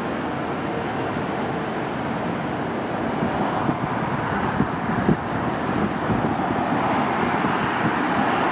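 Steady road traffic noise, growing slightly louder partway through.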